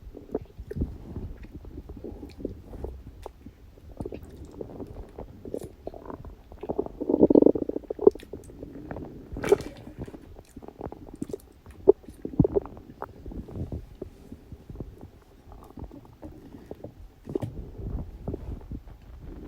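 Human stomach and intestines gurgling and rumbling during digestion, in irregular bubbling pops and squelches. About seven seconds in comes one longer, louder gurgle.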